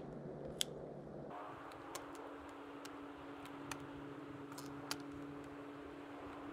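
Faint, scattered sharp clicks a second or more apart over a steady low hum that steps up in pitch a little over a second in.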